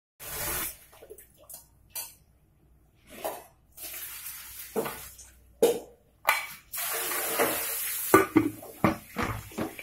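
Kitchen handling of an aluminium pressure cooker: scattered knocks and water running for a couple of seconds, then a cluster of metal clanks near the end as the cooker's lid is set on and closed.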